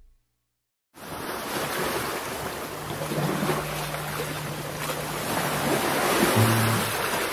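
Steady rushing of sea surf and wind, starting about a second in after a moment of silence, with a low steady hum coming in partway through.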